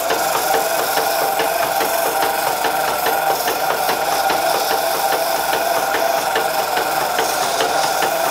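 220-grit sandpaper rubbing against a wooden mallet head spinning on a foot-powered treadle lathe, a steady rasping sound with faint, evenly spaced ticks. Under it runs the steady hum of a shop dust collector, whose blast gate is closed so it is not drawing air.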